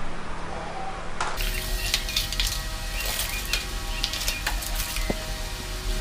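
Bottles, jars and containers clinking and knocking as they are taken out of a refrigerator, a string of sharp clinks over a steady hum.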